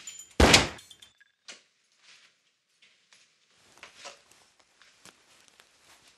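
One loud, sharp impact about half a second in, followed by a few faint knocks and scuffing noises.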